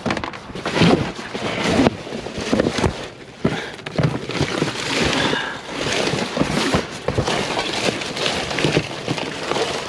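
Irregular clattering and knocks as scrap and debris are handled and moved, over a steady rush of wind on the microphone.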